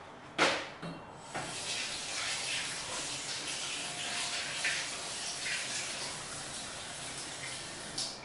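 Kitchen sink tap running steadily as hands are rinsed under the stream, with water splashing in the sink. A sharp knock comes about half a second in, the water starts about a second later, and it stops with a click near the end.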